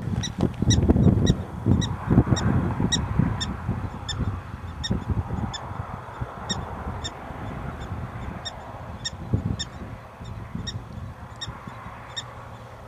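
Black-tailed prairie dog barking its alarm call: a long run of short, sharp, high chirps repeated about every half second.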